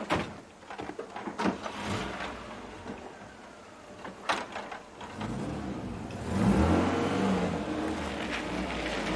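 A few sharp clicks, then an engine starts up about five seconds in, revs and keeps running steadily.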